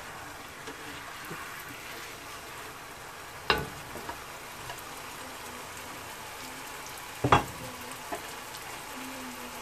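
Onion, garlic-ginger and spice masala with a little water added, sizzling and simmering steadily in a non-stick pan, stirred with a wooden spatula at first. Two sharp knocks, about three and a half and seven seconds in.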